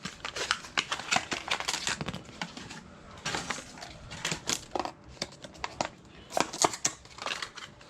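Small plastic and metal fuel-line fittings being handled and fitted together: a quick series of irregular clicks, clinks and rattles as quick-disconnect adapters are joined for an E85 sensor.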